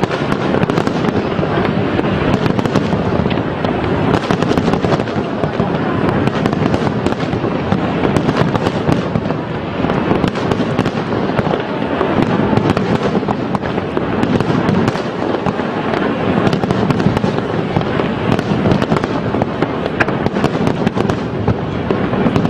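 A dense barrage of aerial fireworks shells bursting, many at once, with bangs and crackle running together without a pause.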